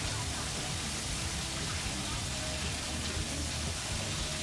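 A steady, even hiss, with faint voices underneath.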